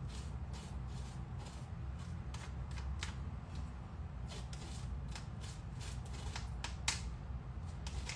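Irregular light clicks and rustles of hands working kitchen utensils while straining tiger nut milk, with a few sharper clicks near the end, over a steady low hum.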